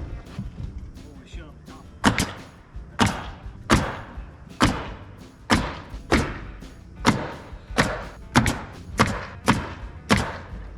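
About a dozen sharp knocks, roughly one to two a second and starting about two seconds in: nails being driven into red oak siding boards as they are fastened to the wall.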